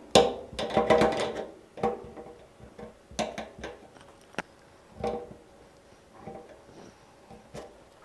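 Pliers working a small retaining pin on a tumble dryer's steel drum-bearing cover: irregular metallic clicks and scrapes as the pin is gripped and bent straight. They are busiest in the first second and a half and come again around three and five seconds in.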